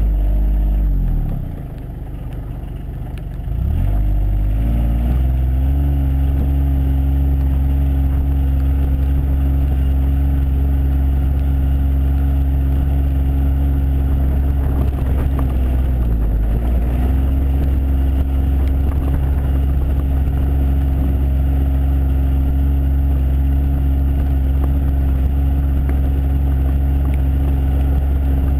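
John Deere Gator 855D's three-cylinder diesel engine running under load. It revs, falls back toward idle for a couple of seconds, then climbs and holds a steady drive speed, with one brief dip in engine speed about halfway through.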